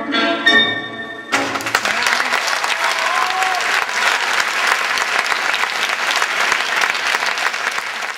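String music plays its last notes, then about a second in it stops and an audience breaks into steady applause.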